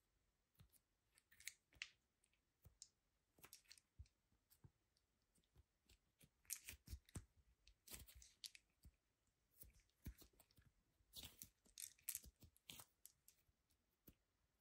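Play dough being kneaded, stretched and torn apart by hand: faint, irregular sticky clicks and crackles that come in clusters as the dough is pulled and squeezed.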